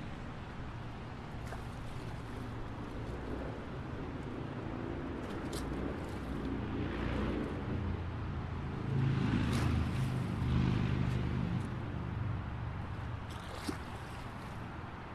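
Busy city street traffic: a steady rumble of engines and tyres, swelling as a vehicle passes close about nine to eleven seconds in, with a short sharp click near the end.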